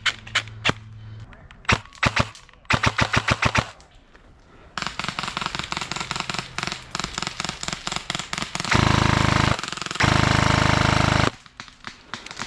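Airsoft guns firing: scattered shots and quick runs, then dense rapid fire. Near the end come two loud, sustained full-auto bursts, about a second and well over a second long.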